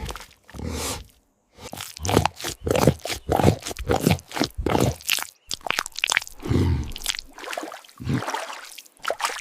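Crocodile biting into and chewing bait: two crunches, a brief pause, then a rapid, irregular run of wet crunches and chomps.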